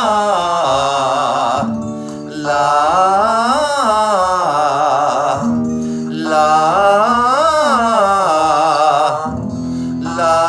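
Male voice singing a 'la' vocal exercise in full voice: three phrases, each a triad arpeggio sung up and back down, about four seconds apart, each opening with a held lower note.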